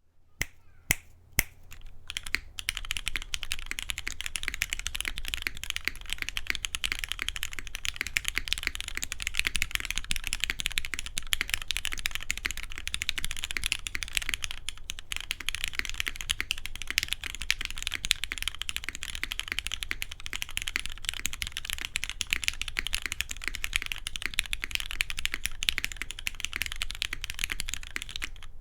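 Custom Matrix 8xv2.0 Additional mechanical keyboard, with an aluminium plate, lubed retooled Cherry MX Black linear switches and GMK keycaps, being typed on. A few separate keystrokes come in the first two seconds, then continuous fast typing, a dense run of key clacks.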